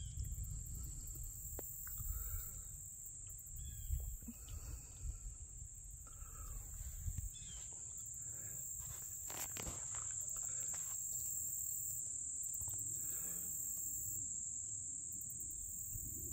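A steady, high-pitched chorus of insects chirring without a break, with a low rumble of wind buffeting the microphone that eases off about halfway through. A few faint short chirps come through in the first half.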